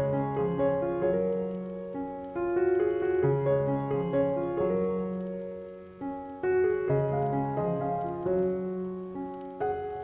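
Background piano music: a slow melody over held chords, with fresh phrases beginning about two and a half seconds in and again about six and a half seconds in.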